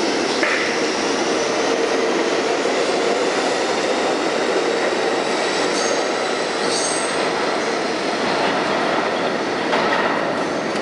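R62A subway train pulling out of an underground station and running off into the tunnel: a steady, loud rumble of steel wheels on rail, with brief high wheel squeals several times.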